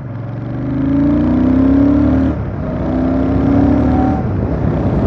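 Royal Enfield Super Meteor 650's parallel-twin engine accelerating through the gears: the pitch rises, drops at an upshift a little over two seconds in, rises again and drops at a second upshift about four seconds in. Wind rushes over the microphone throughout.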